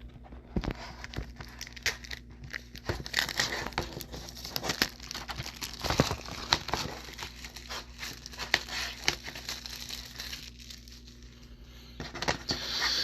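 Plastic wrapping on a Blu-ray and DVD combo pack being crinkled and torn open by hand, with many small crackles and clicks. The sound eases off for a moment shortly before the end, then resumes briefly.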